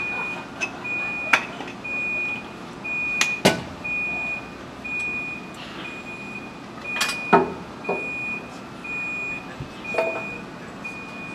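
Electronic warning beep repeating steadily, a high tone about once a second, with a few sharp metallic clanks and knocks from work on the coupler and brake hoses between a locomotive and a railway car.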